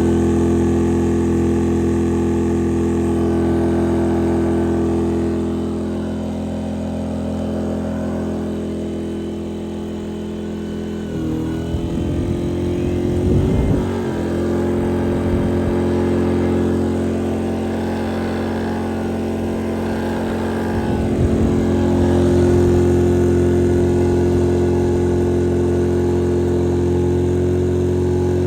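Pulsar PG2300iS inverter generator's engine running steadily under heavy load. Its pitch and loudness shift and waver twice, about eleven to fourteen seconds in and again around twenty-one seconds, as the load changes.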